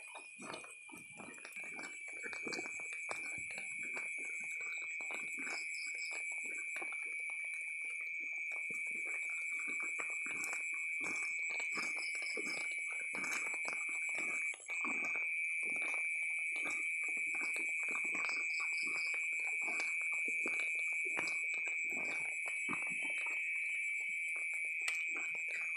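A steady, high-pitched chorus of night insects, with fainter pulsing trills above it. Beneath it are irregular soft taps and rustles.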